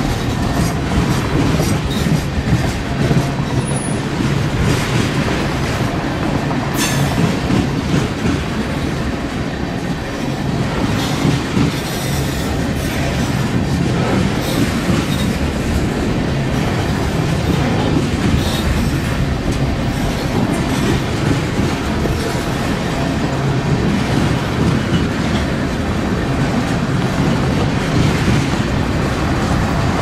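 Freight train's tank cars rolling past: a loud, steady rumble with the clatter of steel wheels over rail joints and a few sharp clicks.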